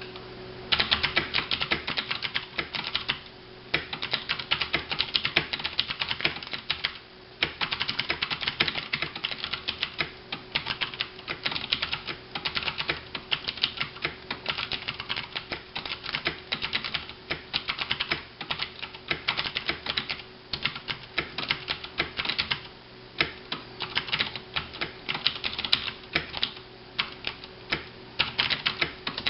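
Fast typing on a KBtalKing Pro mechanical keyboard with Cherry MX Blue switches: a dense, irregular stream of sharp clicks, with a few brief pauses between bursts. The keys are bottomed out, which gives the typing a crisp clatter.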